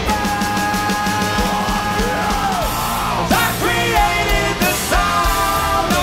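Live hard rock band: electric guitars, bass and drums under a lead vocalist. The singer holds one long note for about two and a half seconds, lets it fall away, then sings shorter phrases.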